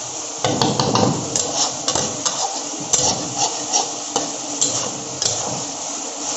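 Metal spatula stirring broiler chicken feet in thick masala in a kadai: repeated scrapes and knocks against the pan, starting about half a second in, over a steady sizzle as the gravy cooks down.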